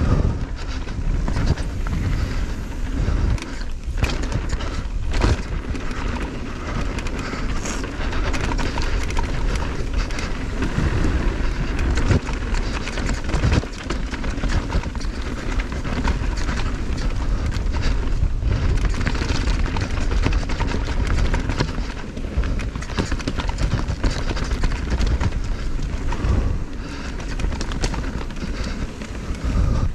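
Riding noise from a mountain bike descending a dirt trail: wind buffets the action camera's microphone while the tyres rumble and the bike rattles and knocks over rough ground, with many short bumps throughout.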